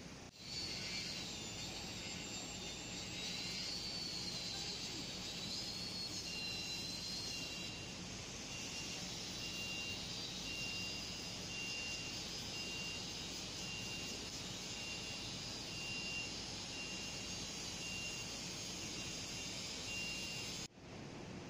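Steady outdoor street noise from traffic, with a short high electronic beep repeating about once a second from about six seconds in until near the end.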